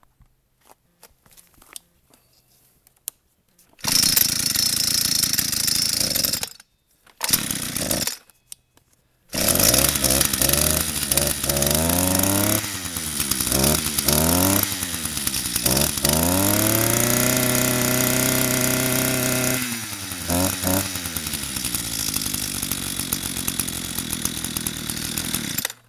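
Echo SRM-230 string trimmer's two-stroke engine being started after a carburetor rebuild. It catches about four seconds in, runs a couple of seconds and dies, fires again briefly, then starts and keeps running. It is revved up and down several times and held at high speed for a few seconds, then shuts off near the end.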